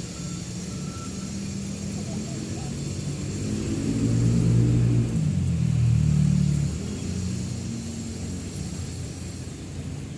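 A motor vehicle's engine running close by, a low pitched hum that shifts in pitch, swells to its loudest in the middle and then eases off.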